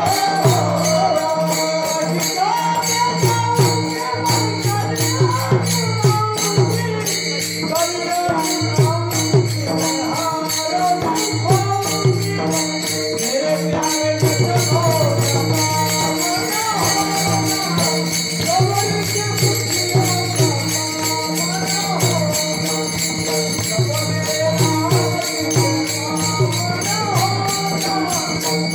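Kirtan devotional music: a wavering melody over a steady, repeating drum beat, with jingling hand cymbals keeping time.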